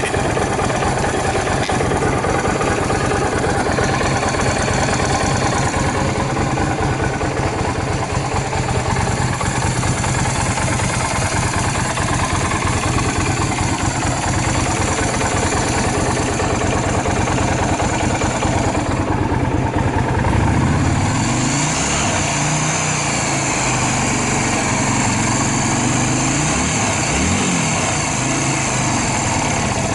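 Yamaha Drag Star 250's air-cooled V-twin engine idling steadily; in the last third its speed rises and falls a few times. The engine runs with no abnormal noises.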